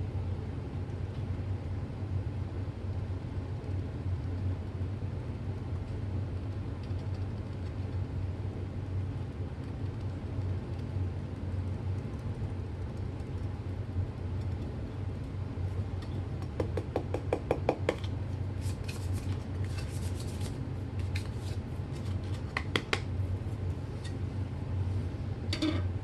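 Edge of a small plastic dish scraped back and forth over carpet, working baking soda into the pile: a quick run of scratchy strokes about two-thirds of the way in, then scattered scrapes and clicks, over a steady low hum.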